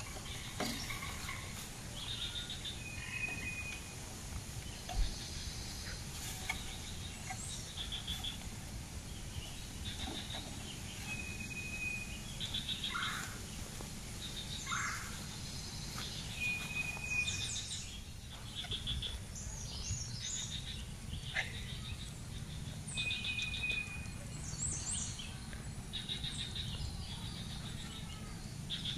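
Several birds chirping and calling, with one short clear whistle repeating every five to six seconds, over a low steady outdoor rumble. There is a single thump about five seconds in.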